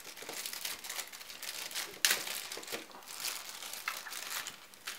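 Clear zip-lock plastic bag crinkling as hands pull it open and handle the small parts inside, in irregular crackles with a sharper one about two seconds in.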